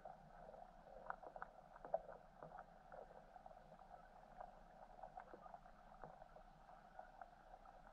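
Faint underwater ambience picked up through a submerged camera's housing: a steady muffled hum with scattered small clicks and ticks, one louder tick about two seconds in.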